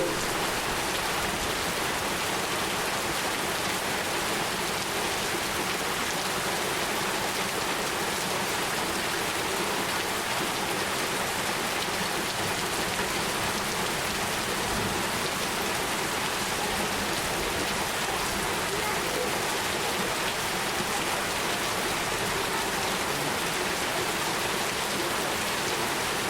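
Steady rain falling on a hard surface, a dense even hiss of many small drops.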